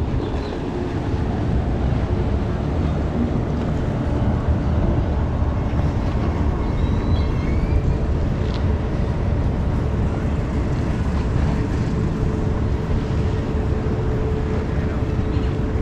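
Wind rumbling on the microphone over the steady hum of a boat's outboard motor, whose tone grows stronger near the end.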